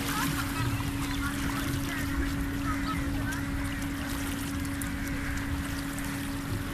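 Rotating kiddie boat ride running: a steady motor hum over a low rumble of wind on the microphone, with a few faint short high calls.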